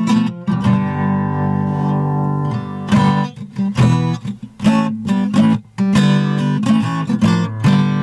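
Background music: an acoustic guitar strummed and plucked.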